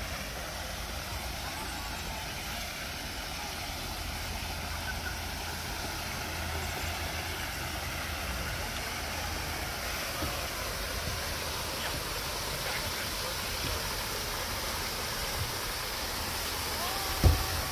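Steady rushing and splashing of an artificial rock waterfall pouring from several spouts into a pond, growing a little louder toward the end, with a low rumble underneath. A single sharp thump comes near the end.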